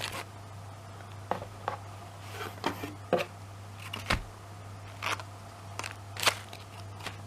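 Items and packaging being handled: scattered light clicks and rustles, a dozen or so over several seconds, over a steady low hum.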